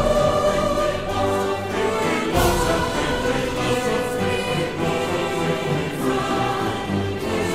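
Background choral music: a choir singing held chords, which change about two seconds in and again near the end.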